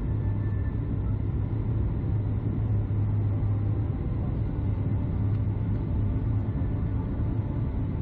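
Steady low rumble inside a Boeing 737 MAX 9 cabin, the even noise of the engines and the air rushing past the airliner, with a constant low hum under it.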